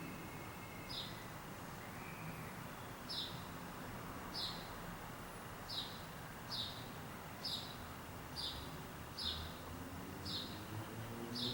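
FASCO Charleston ceiling fan running with a steady low hum, while a short, high chirp that falls in pitch repeats about once a second, starting about a second in.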